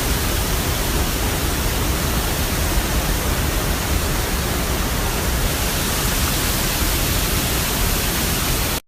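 Steady, loud rushing of a waterfall close by, an even roar of water with no change through the clip.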